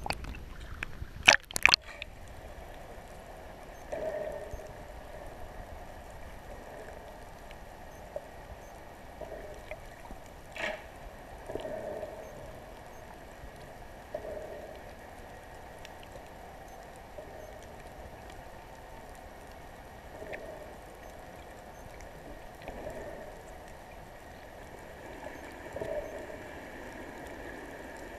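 Muffled water sounds heard through a GoPro underwater: sharp splashes and knocks as the camera breaks the surface a little over a second in, then a steady muffled wash with soft gurgling swells every few seconds.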